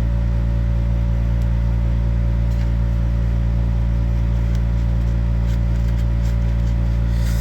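Steady low-pitched electrical or motor hum made of several steady tones, with a few faint light clicks.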